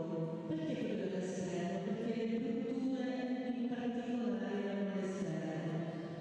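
A woman singing a slow, chant-like melody into a handheld microphone, holding long notes that step from one pitch to the next.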